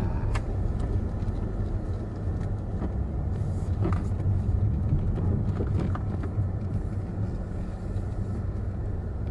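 Car driving up a mountain forest road: a steady low engine and tyre rumble with scattered small knocks and clicks.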